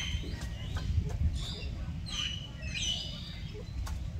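Birds chirping: a few short, high calls that fall in pitch, clustered around the middle, over a steady low rumble.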